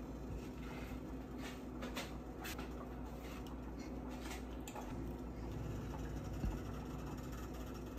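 Faint clicks and scrapes of a plastic slotted serving spoon against plates as food is dished out, over a steady low hum, with one sharper knock about six and a half seconds in.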